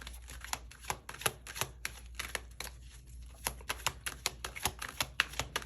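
Tarot cards being shuffled by hand: a steady run of light clicks, about three a second.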